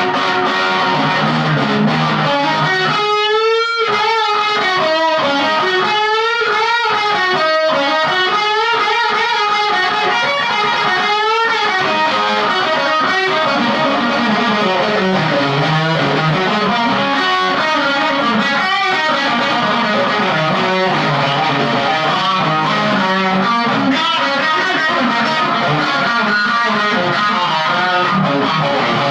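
Electric guitar, a Gibson Les Paul Studio, overdriven by a Jackhammer JH1 distortion pedal into a small Marshall amp, playing lead lines. Held notes waver with wide vibrato from about three to twelve seconds in, then give way to faster, busier phrases.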